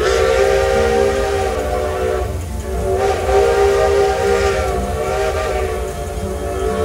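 Steam locomotive whistle sounding two long, steady blasts, the second longer than the first.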